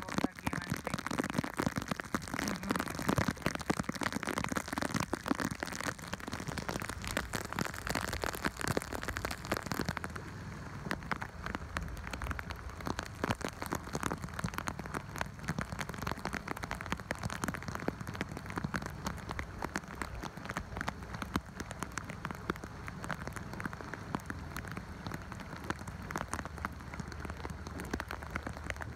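Heavy tropical downpour pelting the sea and a small boat's deck: a dense, steady hiss of countless drops. About ten seconds in it turns duller, losing much of its hiss.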